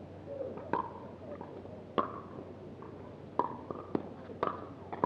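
Pickleball rally: paddles striking a hollow plastic ball, making about six sharp, ringing pocks. The first few come more than a second apart, then the hits quicken to about two a second near the end in a fast volley exchange.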